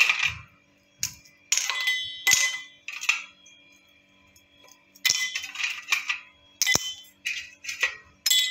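Shards of hardened caramel snapped by hand and dropped into a small steel bowl, clinking against the steel with a short metallic ring. The clinks come in scattered groups, with a quiet pause a little before the middle.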